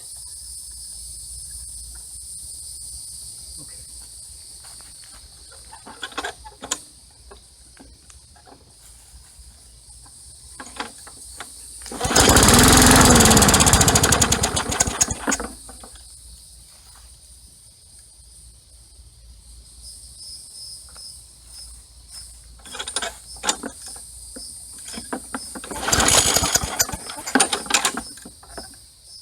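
Cold Briggs & Stratton Quatro single-cylinder lawn mower engine being started after priming with an aftermarket primer system: about twelve seconds in it runs for about three seconds, its pitch rising and then falling away, and near the end it runs again for about two seconds. A few clicks come before, over steady crickets.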